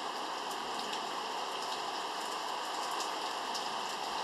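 Steady rain falling, an even hiss with scattered sharper drop hits ticking through it.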